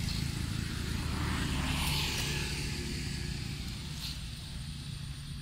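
A motor engine droning steadily, slowly fading.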